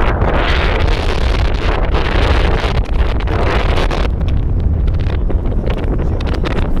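Strong wind buffeting the microphone: a loud, steady low rumble with a hiss that surges and eases with the gusts.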